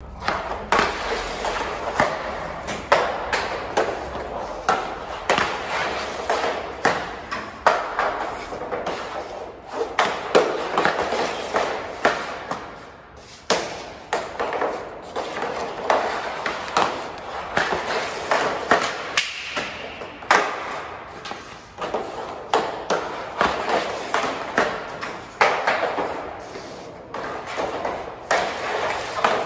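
Hockey stick and pucks on plastic dryland tiles: the puck scrapes and rattles steadily as it is handled, broken by many sharp clacks of shots and of pucks hitting the net, roughly one a second. The sound carries off bare concrete walls.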